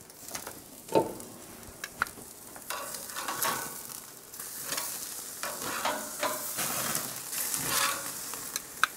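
Roast beef steaks sizzling on a gas grill's grate as they are turned with metal tongs; the sizzle swells a few seconds in. A few sharp clicks and knocks of the tongs against the grate.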